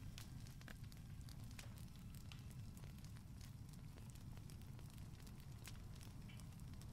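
Faint crackling of a wood fire in a fireplace, scattered sharp pops over a low steady hum.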